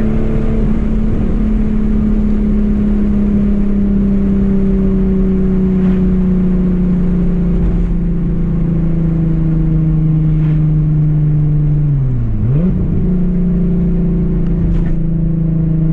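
Volkswagen Corrado SLC's VR6 engine pulling the car along at steady revs, its drone sagging slowly in pitch; about twelve seconds in the revs dip sharply and climb straight back.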